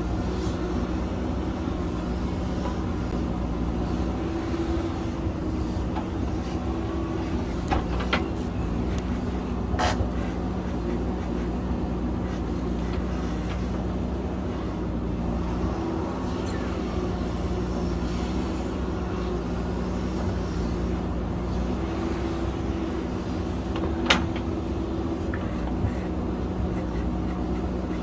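JCB backhoe loader's diesel engine running steadily while the backhoe bucket scrapes at a rock face, with a few sharp knocks of bucket on rock, the loudest a little before the end.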